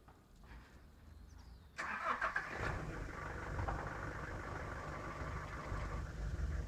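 A motor vehicle's engine starts suddenly about two seconds in and keeps running steadily.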